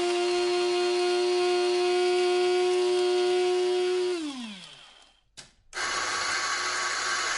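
Electric coffee grinder motor running with a steady whine, then switched off about four seconds in, its pitch falling as it winds down. After a brief pause there is a single click, and a steady hissing noise with a low hum starts about six seconds in.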